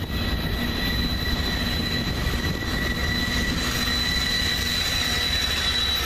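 A diesel-electric freight train, led by BNSF and CSX locomotives, passes close by with a steady low engine rumble. Over it runs a steady high-pitched squeal from the steel wheels on the rail.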